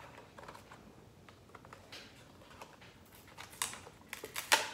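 Hot Wheels toy car packaging being handled and opened by hand: light crinkling and scattered clicks of cardboard and plastic, with a couple of louder snaps near the end.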